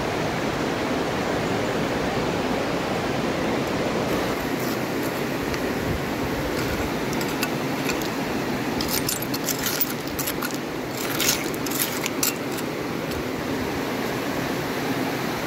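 River water rushing steadily. About halfway through, a few seconds of light clinking and jingling of small hard pieces knocking together.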